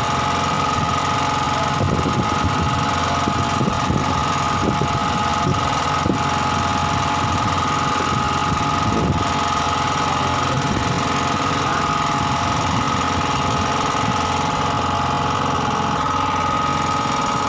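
Small engine on a fishing boat running steadily at an even speed, with a constant high whine over its lower hum.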